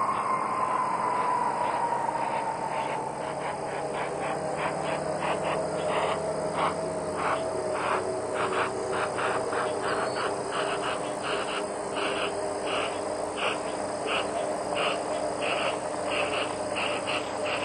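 Crickets chirping in a fast, even pulsing rhythm, over a thin whine from the rolling Space Shuttle orbiter Atlantis that slowly falls in pitch and then levels off as the orbiter rolls out toward wheel stop after landing.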